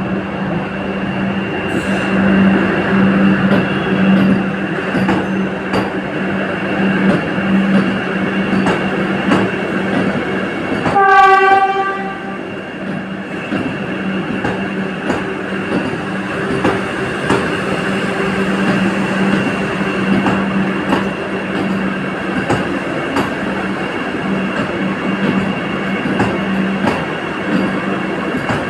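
Vande Bharat Express electric train running, a steady rumble with a steady hum and faint regular clicks from the wheels. About eleven seconds in, a train horn sounds one blast of about a second.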